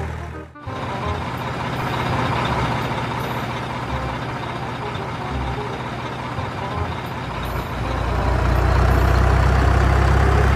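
Heavy diesel engine running steadily at low revs, a deep rumble. It breaks off briefly about half a second in and grows louder again from about eight seconds in.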